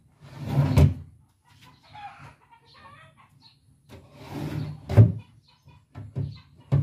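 Wooden cabinet drawers being pushed shut: a short sliding rub, then a sharp wooden knock as the drawer hits home, once about a second in and again about five seconds in, with two smaller knocks near the end. Chickens cluck faintly in between.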